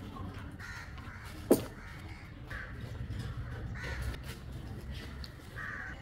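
Crows cawing several times, a few seconds apart, with one sharp knock about a second and a half in.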